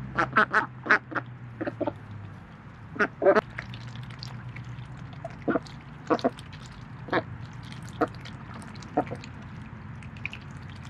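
Domestic ducks quacking: a quick run of short quacks at the start, a pair about three seconds in, then single quacks about a second apart.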